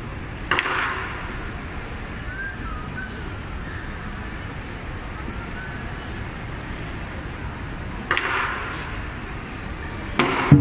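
A pause in lion dance drumming, with crowd murmur in the background, broken by two single cymbal clashes that ring briefly, about half a second in and about eight seconds in. Near the end a sharp strike brings the full drum and cymbal ensemble back in.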